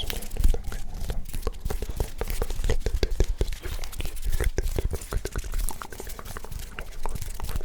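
Close-miked ASMR hand sounds: fingers and palms rubbing, tapping and clicking right at the microphone, a dense run of short irregular clicks over low thuds.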